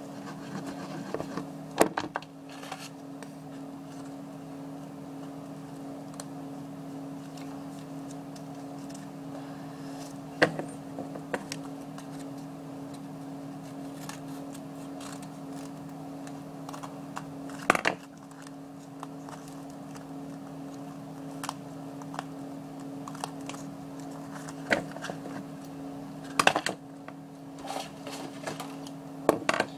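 Crafting sounds at a tabletop: occasional clicks, taps and knocks as a cardboard dollhouse box, paper pieces and a glue bottle are handled, with a few louder knocks spread across. Under them a steady low hum of the room.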